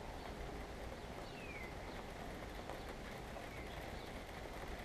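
Quiet, steady background hiss of the room, with a faint short falling chirp about a second and a half in and a fainter one near the end.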